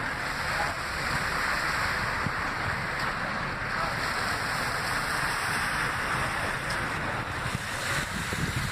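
Wind buffeting the microphone, an irregular low rumble, over a steady hiss of outdoor street ambience with faint traffic.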